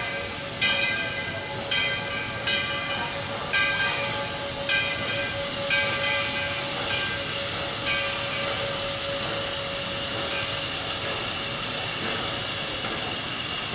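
Steam locomotive bell ringing about once a second over a steady hiss of steam; the bell stops about eight seconds in and the hiss runs on.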